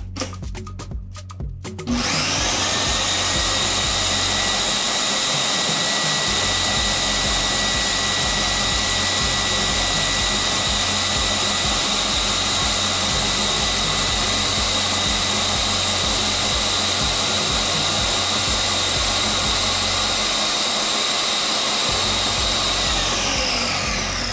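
Nutri Ninja countertop blender running at full speed, chopping onions, garlic and peppers into a purée: the motor starts abruptly about two seconds in with a steady whine, then winds down with falling pitch near the end.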